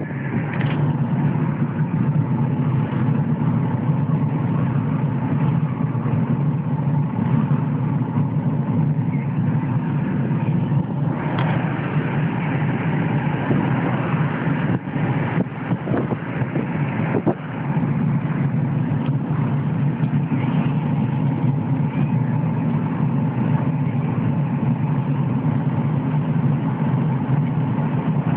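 Car driving along, heard from inside the cabin: steady engine and tyre noise, with a few short knocks or bumps about halfway through.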